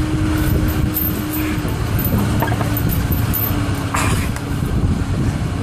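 A tow truck driving along a street: steady engine and road rumble with a constant hum underneath.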